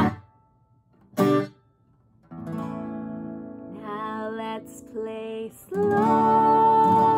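Acoustic guitar strummed with a woman singing. The music breaks off suddenly, a single short strum sounds about a second later, then a chord rings with singing that grows louder, ending in a long held sung note over the strumming.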